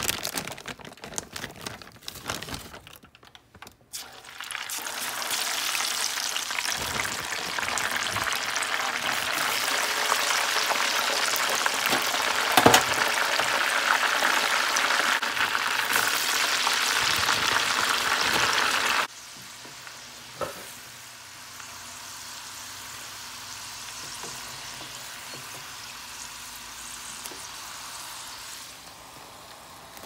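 Crinkle-cut fries deep-frying in a pan of hot oil: a loud, steady sizzle starts about four seconds in, after a few seconds of a bag being rustled and handled. About two-thirds of the way through, the sizzle drops abruptly to a quieter, steady frying hiss.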